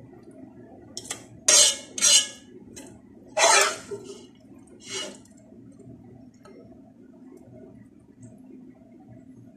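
A spatula scraping and knocking against a glass baking dish as it moves the bean-sprout filling, in about six short strokes over the first five seconds.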